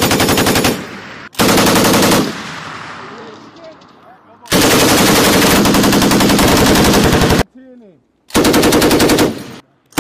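M240B 7.62 mm machine guns firing in bursts of rapid, evenly spaced shots. There is a short burst at the start and another about a second and a half in. A long burst of about three seconds starts around four and a half seconds in, and a short one follows after eight seconds. The report echoes away between bursts.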